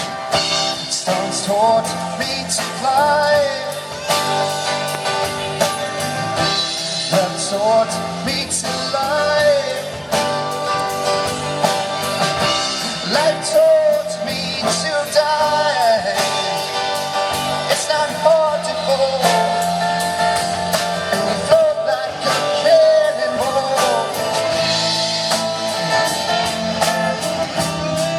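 Rock band music with guitar, bass and drums, and a lead melody line that bends up and down in pitch.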